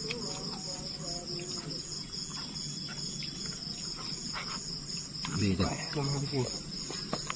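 Crickets chirring in a steady, evenly pulsing night chorus, with scattered light clicks and a brief low voice about five seconds in.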